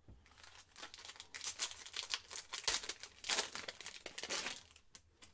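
Foil wrapper of a 2021 Panini Mosaic football card pack being torn open and crumpled by hand: a dense run of crinkling and crackling that dies away near the end.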